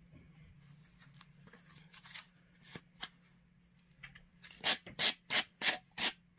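Zipper on a fursuit body being worked by hand: faint rustling of fur and fabric, then about six quick rasps of the zipper being pulled in short strokes in the last two seconds.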